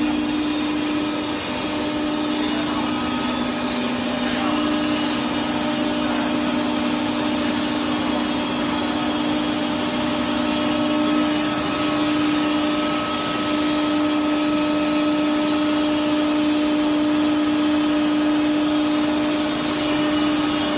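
Wood chipper running steadily: a constant mechanical hum with a strong, steady pitch over a dense rushing noise, and a slightly lower second tone that drops out about halfway through.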